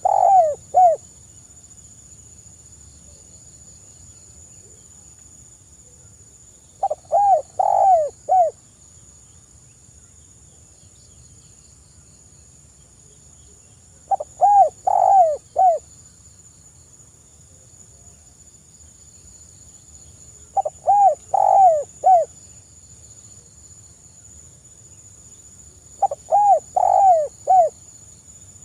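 Spotted dove (tekukur) cooing: five phrases about six to seven seconds apart, each of three to five short, rounded coo notes. A steady faint high-pitched whine runs underneath.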